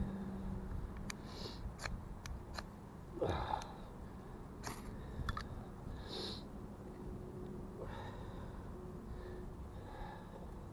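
Ferro rod scraped with a steel striker several times, short sharp scrapes, until the cotton-ball tinder catches, with sniffling from a runny nose in between.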